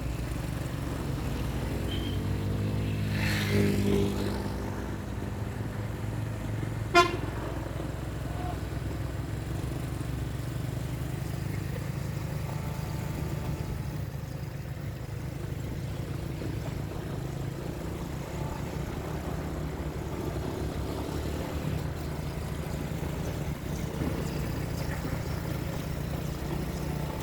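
A vehicle engine runs steadily with a low hum. A short horn blast with a louder swell comes about three to four seconds in, and a single sharp click about seven seconds in.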